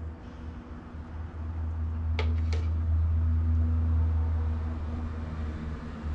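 A steady low hum that swells through the middle, with two light clinks about two seconds in, a third of a second apart: a metal spoon knocking against the blender jar or plate as avocado sauce is spooned out.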